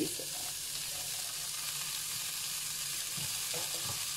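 Chopped vegetables sizzling steadily in ghee in a wok as frozen green peas are tipped in, with a few faint taps near the end.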